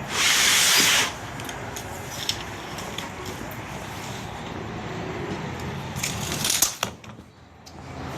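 Galvanized 26-gauge sheet metal being cut in half and handled: a loud scraping hiss for about a second at the start, then steady low shop noise with a few sharp metal clicks and rattles about six seconds in.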